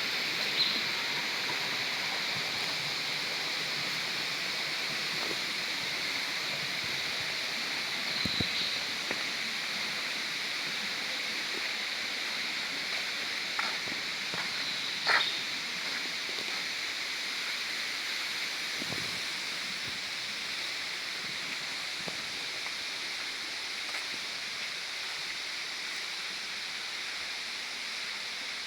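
Steady rushing of a waterfall, with a few brief sharp sounds over it, the loudest about fifteen seconds in.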